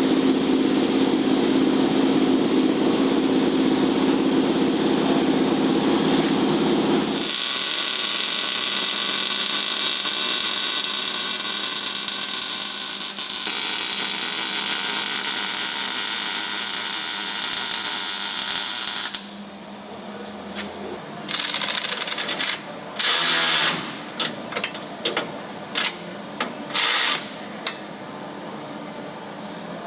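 Power tools running: a steady motor hum for the first seven seconds, then a higher-pitched tool running steadily, then a string of short bursts as a tool is triggered on and off.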